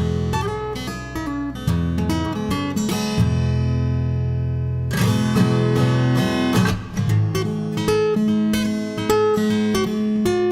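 Background music: strummed and picked acoustic guitar.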